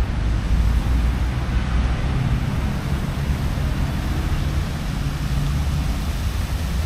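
Steady low rumble of outdoor background noise, with a faint hum that comes and goes in the middle.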